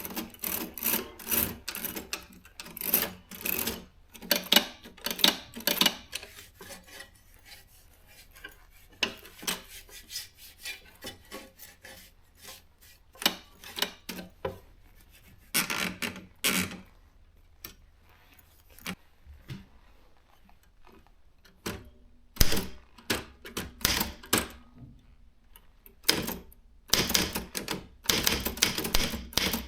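Consul 1502 typewriter being typed on: runs of quick, sharp key strikes separated by short pauses, with a quieter stretch about two-thirds of the way through.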